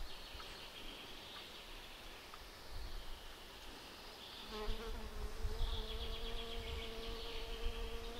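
A flying insect buzzing close by: a steady, even-pitched hum that starts about four and a half seconds in. Under it, a higher chirring sound comes and goes.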